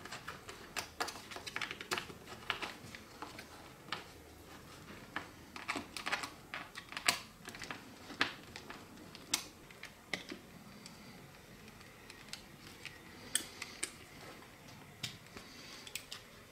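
Light, irregular clicks and taps of a screwdriver and small metal and plastic parts against the opened plastic housing of a corded drill being taken apart by hand. The clicks come thick in the first half and thin out to a few scattered ones later.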